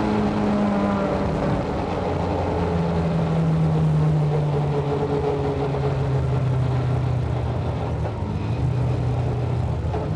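Lada VFTS rally car's four-cylinder engine pulling hard at high revs, heard from inside the cabin. The pitch drops once about a second and a half in, as on an upshift, and then holds.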